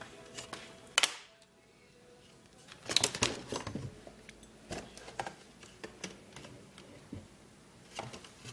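Plastic clicks and knocks from an Asus N56V laptop being handled during disassembly: one sharp snap about a second in, a cluster of knocks around three seconds as the machine is turned over and set down, then scattered light taps.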